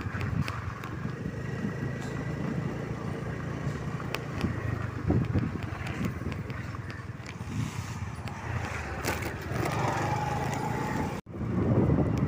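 Scooter engine running steadily with wind and road noise, heard from the pillion seat while riding. The sound drops out suddenly for an instant near the end.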